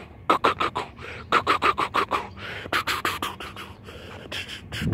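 A man imitating with his mouth the clickety-clack of train wheels crossing a railroad diamond, in quick runs of sharp clicks and clacks.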